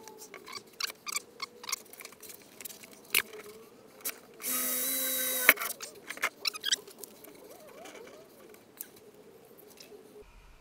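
Power drill running for about a second, drilling an access hole in the bottom ribs of a Land Rover Defender back door for cavity-wax injection. Sharp clicks and knocks of the drill and door being handled come before and after it.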